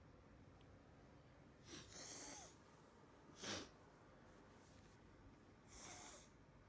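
A child's congested breathing through a blocked nose: three faint breathy sniffs or snorts, the middle one, about three and a half seconds in, short and the loudest.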